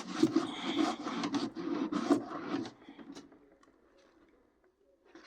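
Wiping and rubbing on the greasy inside wall of a toaster oven, a dense scrubbing sound that stops about two and a half seconds in.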